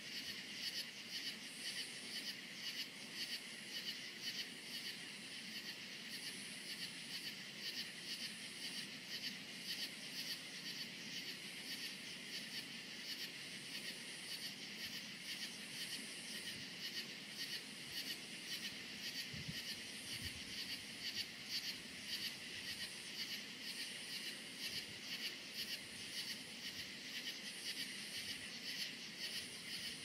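Night chorus of crickets chirping steadily in dense, rapid pulses, with a higher, fainter insect buzz that comes and goes every second or two.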